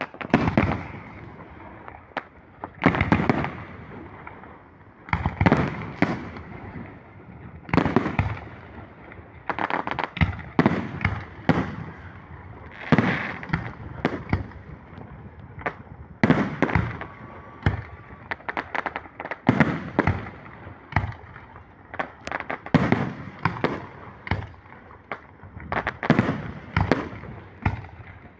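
Fireworks going off: a long series of sharp bangs, one every one to three seconds, with crackling and rumbling between the bursts.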